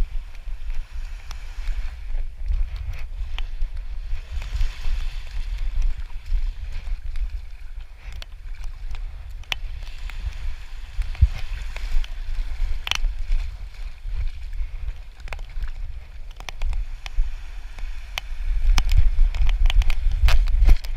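Wind buffeting the microphone of a camera strapped to a running dog: an uneven low rumble that grows louder near the end. Under it is the hiss of small waves washing up the sand, with a few sharp knocks from the mount.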